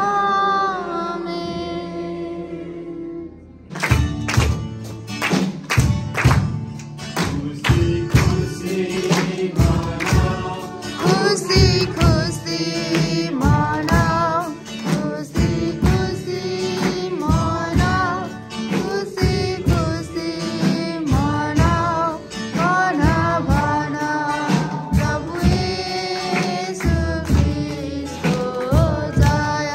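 Music with singing: a single held sung note, then about four seconds in a song with a steady beat and a sung melody starts.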